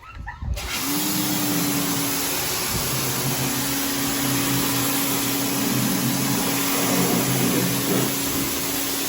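Greenworks pressure washer switched on and spraying: its motor hums steadily under a loud hiss of water jetting from the nozzle. It starts abruptly about half a second in and runs evenly.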